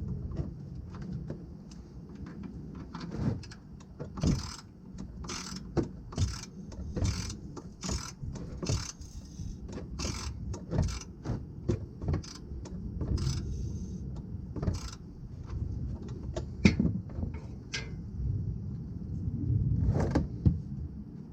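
Socket wrench on the 15 mm oil-pan drain plug: a run of sharp metal clicks and clanks as the ratchet and wrench work the plug loose, about one or two a second and densest in the middle.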